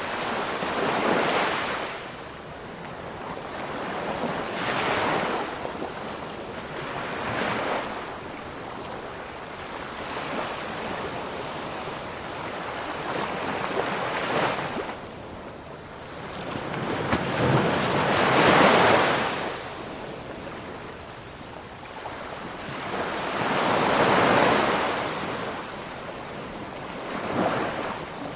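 Ocean waves breaking on the shore. Each surge of surf swells up and washes away, about seven in all, and the loudest comes about two-thirds of the way through.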